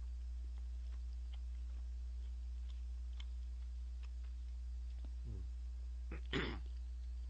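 A person chewing steak, with faint scattered mouth clicks over a steady low electrical hum. About five seconds in there is a short murmured voice sound, then just after six seconds a brief breathy burst, the loudest moment.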